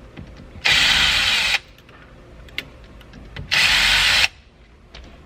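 Power drill spinning out the screws that hold a steering wheel, in two runs of about a second each, its whir rising in pitch as each run starts. A few light clicks fall between the runs.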